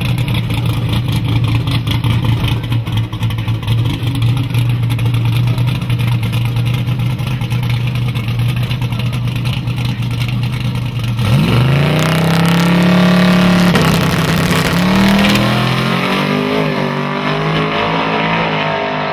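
Mid-1960s Chevy II Nova drag car's engine running steadily on the starting line, then launching at full throttle about eleven seconds in. The revs climb sharply, drop and climb again at gear changes, and the sound fades as the car pulls away down the strip.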